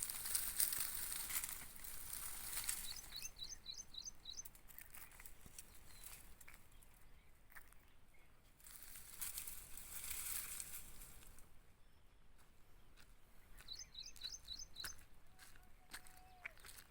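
A bird calling a quick run of about eight high chirps, twice: about three seconds in and again near the end. Underneath is a steady outdoor hiss with scattered small clicks.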